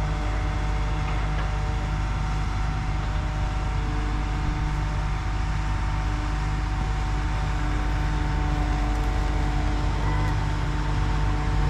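Large pumpkin-harvesting machine running steadily as it moves forward: a constant low engine drone with a few faint steady humming tones above it.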